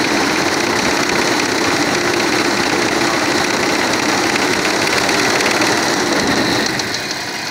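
1996 Audi A4's 2.6-litre six-cylinder petrol engine held at slightly raised revs, running with a fast regular knock, then easing back toward idle near the end. The knock is a connecting-rod knock, traced to the first cylinder.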